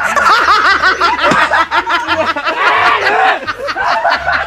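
Loud laughter from several voices, rapid overlapping rising-and-falling laughs with no words.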